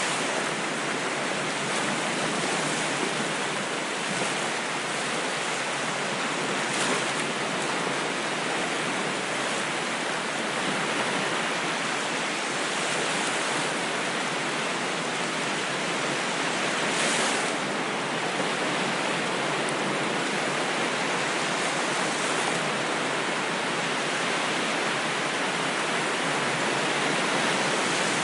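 Ocean waves washing and breaking as a steady, continuous hiss, swelling slightly now and then.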